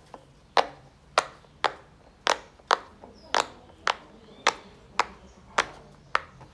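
Silicone pop-it fidget toy with large bubbles being pressed one bubble after another, giving about a dozen sharp pops at a steady pace of roughly two a second.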